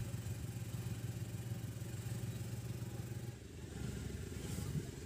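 Auto rickshaw engine running steadily under way, a low rumble heard from inside the vehicle, with a brief dip about three and a half seconds in.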